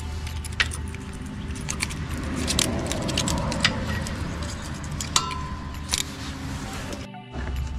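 Light metallic clinks and jingles of an open-end wrench and a feeler gauge working on the rocker arms of a V-twin lawn mower engine while the valve clearance is set.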